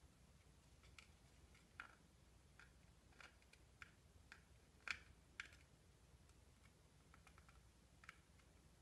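Near silence with faint, scattered clicks and taps, the loudest about five seconds in: a plastic sculpting tool working modelling dough into a plastic mold.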